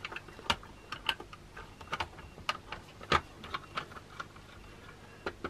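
Hard plastic parts of a vintage AT-AT toy clicking and tapping against each other as they are handled and slotted together, in scattered irregular clicks that thin out toward the end.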